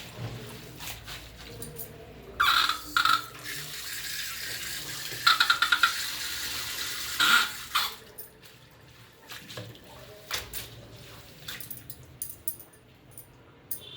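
Water running and splashing as chickpea greens are washed, loudest from about two seconds in until nearly eight seconds in, then a few light clicks and rustles.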